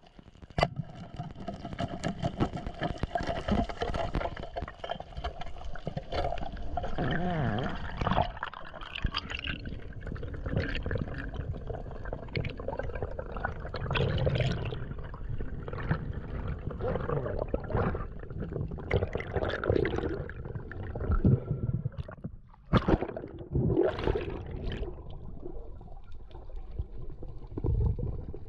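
Water gurgling and sloshing, with many scattered clicks and knocks.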